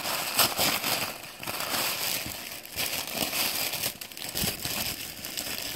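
White tissue paper crinkling and rustling irregularly as hands unwrap it, with many small sharp crackles.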